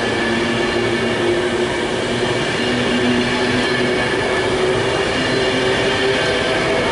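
Class 390 Pendolino electric train departing past the platform: a loud, steady rolling of wheels on rail, with a whine of several steady tones laid over it.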